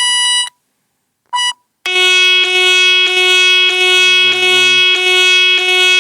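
Active911 pager alert tones played on a phone: a high electronic beep about half a second long, a brief second beep, then a long buzzy alert tone held for about five seconds with slight dips about twice a second.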